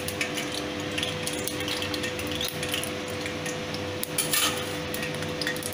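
Metal spatula clinking and scraping against a metal kadai with oil in it, the loudest clatter about four seconds in, over a steady hum.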